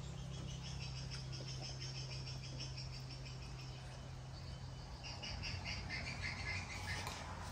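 Rapid, high chirping from a small animal, in quick pulsed trills: one run in the first few seconds and another starting about halfway through. A steady low hum sits under the first half and then fades.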